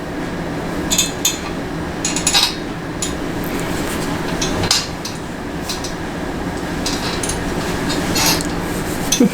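Strokes of a hairbrush through curled hair: short rustling swishes about once a second, with light clinks of handling, over a steady low hum.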